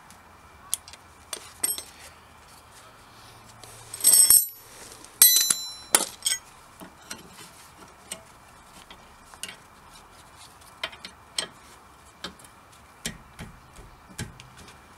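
Metal tools working on a car's rear brake caliper: irregular sharp clicks and taps, with two louder ringing metal clinks about four and five seconds in.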